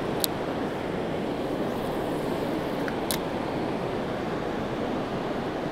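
Steady rush of a large, fast river flowing past the bank, with two short sharp clicks about three seconds apart.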